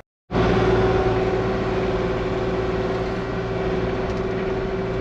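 Kubota KX40-4 mini excavator's diesel engine running steadily, with a constant whine over it. It comes in abruptly just after the start.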